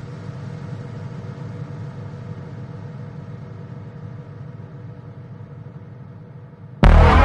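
A low, steady hum made of several held tones, slowly fading. Loud music cuts in near the end and stops abruptly.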